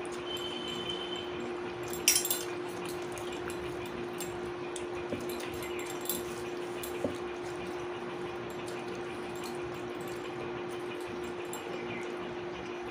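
Quiet eating at a meal: a few soft clicks and one sharper clink, as of a plate or utensil, about two seconds in. Under it runs a steady low hum and hiss of room noise.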